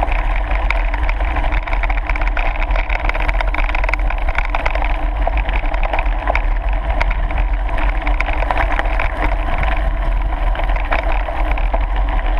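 Mountain bike rolling over a gravel path, heard from a camera riding along: steady tyre noise with dense small rattles and clicks, over a constant low rumble from wind and vibration on the microphone.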